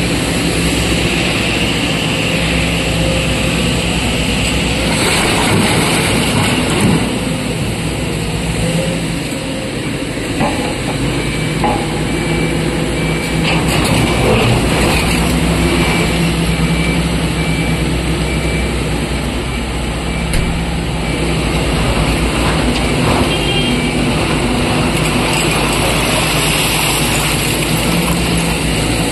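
Wheel loader's diesel engine running steadily as it works the quarry floor, with a few short knocks. A high, evenly repeated beeping sounds for about ten seconds in the middle.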